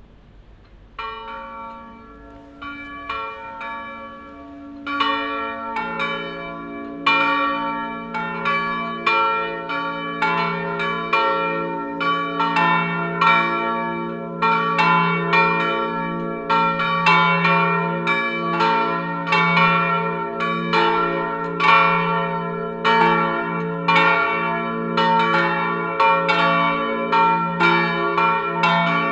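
Three swinging bronze church bells, cast in 1988 by the Felczyński foundry in Przemyśl and tuned to d'', b' and f', starting up one after another in a free peal. The first strokes come about a second in, a second bell joins within a couple of seconds, and the deepest, largest bell comes in about six seconds in, after which all three ring on together in a dense, overlapping stream of strokes.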